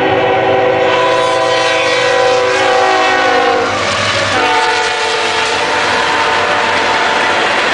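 Diesel freight locomotive's air horn sounding a steady multi-note chord as it passes. The chord drops in pitch about four seconds in as the locomotive goes by, and the rolling rumble of freight cars grows beneath it.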